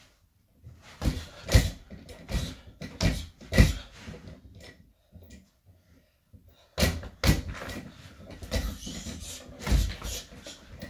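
Punches landing on a free-standing reflex punching bag on a spring stand. There are a few single hits in the first four seconds, then, after a pause of about two seconds, a quicker flurry of hits.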